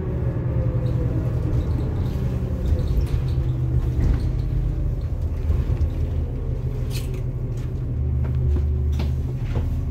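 Cabin noise of a New Flyer DE40LF diesel-electric hybrid bus under way: a steady low drivetrain and road rumble, with a few sharp clicks and rattles near the end.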